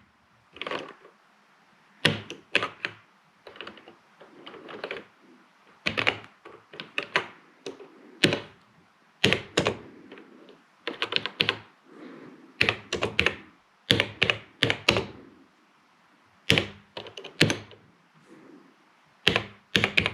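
Keys being typed on a TRS-80 Model 100 portable computer's keyboard, irregular clicks in short bunches with pauses between, as a short BASIC program is entered.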